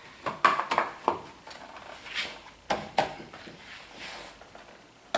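Plastic-backed post cover being worked into place on a tractor cab's corner post: a series of sharp plastic clicks and knocks with some scraping, the two loudest knocks close together a little before the middle.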